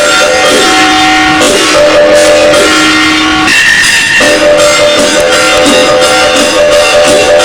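Instrumental music track for a Sichuan opera face-changing act: held melodic notes that change every second or so over a dense, fast percussive texture.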